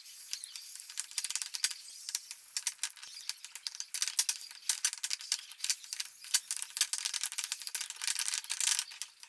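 A spoon stirring and scraping a thick cream-cheese and sour-cream dip around a ceramic bowl: a rapid, irregular run of clicks and soft squelches.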